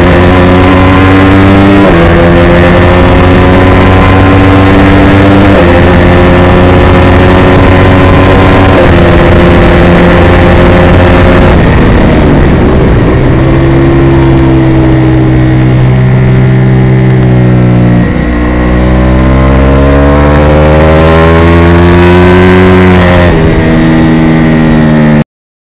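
Ducati 848 Evo's 849 cc L-twin engine at race speed, very loud and close: the revs climb and drop at each upshift, three times in the first ten seconds. About halfway the engine note falls away, then builds again through the gears. The sound cuts off abruptly just before the end.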